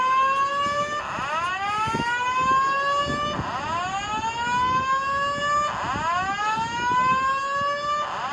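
A Simplex 4100ES voice-evacuation fire alarm sounding its whoop tone through the building's speakers, a rising tone that climbs quickly, levels off and starts over about every two and a half seconds. This is the second-stage general alarm, sounded once the first-stage 5-minute timer ran out.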